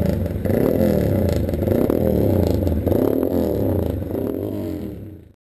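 Vehicle engine running and rattling, heard from a camera mounted on the moving vehicle as it drives across the salt flat. The sound fades out and stops about five seconds in.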